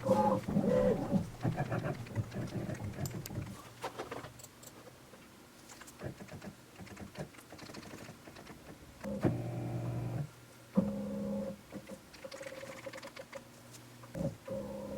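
Light clicks and handling noise, then several short bursts of steady hum, each about a second long, from the CNC machine's axis motors as it is jogged in short moves to find the corner of the stock.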